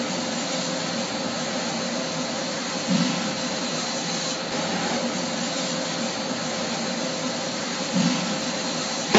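EVA shoe injection molding machine running in a factory: a steady mechanical hiss with a faint hum, with two brief low surges about three and eight seconds in.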